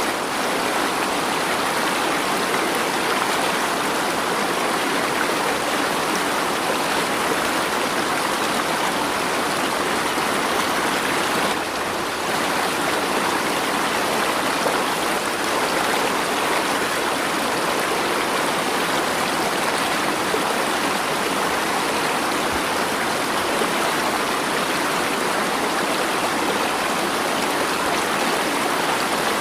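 Flowing stream water rushing in a steady, unbroken hiss.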